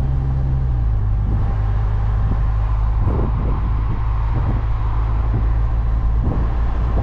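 A car driving: a steady low engine and road rumble.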